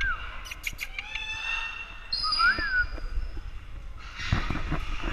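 A short whistle that rises and falls in pitch, with a few sharp clicks a little before and after it.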